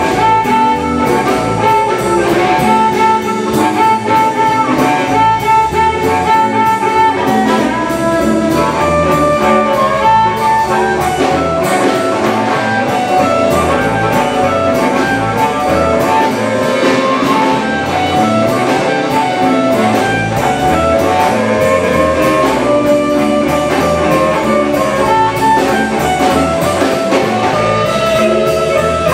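Live electric blues band: amplified blues harmonica played into a vocal microphone, holding long notes over electric guitar, electric bass and drums.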